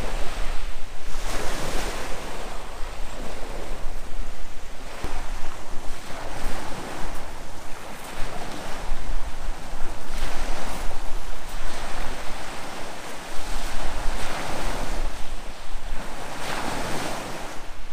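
Sea waves breaking and washing onto the shore, swelling in surges every few seconds, with wind rumbling on the microphone.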